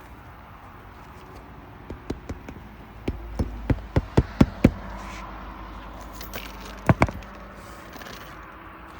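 Hammer blows on a roof, driving roofing nails into a replacement asphalt shingle: a quick run of sharp strikes that grow louder, then two more a couple of seconds later.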